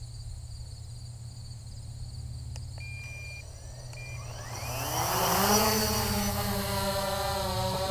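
Holy Stone HS700D quadcopter's motors and propellers spinning up: a whine that rises steeply in pitch and loudness about four and a half seconds in, then holds a steady buzzing hum. Underneath is a steady low rumble, and a couple of faint short high beeps come about three seconds in.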